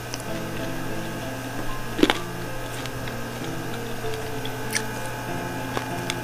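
Soft instrumental background music of short held notes, with a few sharp crunchy clicks from chewing crispy fried chicken wings, the loudest about two seconds in.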